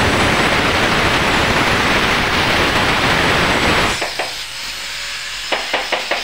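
A loud, steady rushing hiss that cuts off about four seconds in. Near the end, a stiff-bristled scrub brush starts making quick scrubbing strokes on a tiled floor, about five a second.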